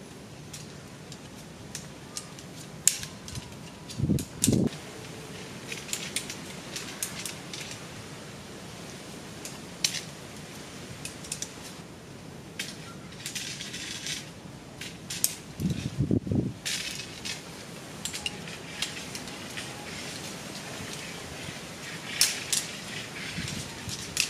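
Aluminium tent pole sections clinking and clicking against each other as they are unfolded and joined, with a few duller knocks about four seconds in and again around sixteen seconds.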